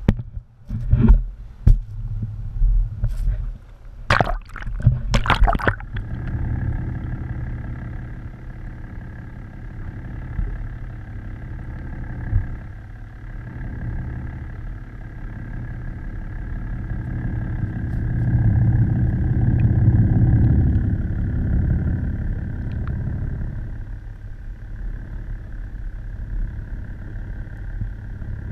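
Boat engine and propeller running steadily, heard underwater through a camera housing: a steady whine over a low drone that swells about two thirds of the way through. The first few seconds hold splashes and knocks as the camera goes into the water.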